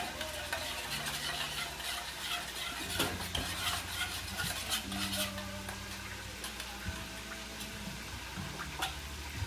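A fork whisking wing sauce of hot sauce, melted butter and mustard in a bowl: a quick, steady run of small clinks and scrapes.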